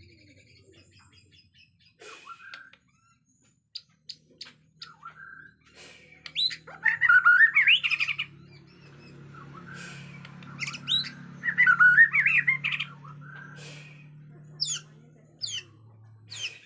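Bornean shama (murai batu) singing in an agitated, fired-up mood: scattered chirps, two loud bursts of fast warbled phrases, then a few sharp down-slurred whistles near the end.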